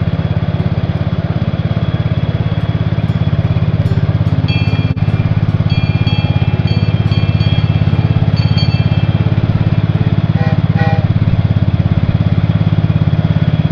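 Cub Cadet garden tractor engine running steadily under a constant throttle, its firing pulses rapid and even, as it pulls a homemade train of carts along. A few brief high tones are heard faintly in the middle.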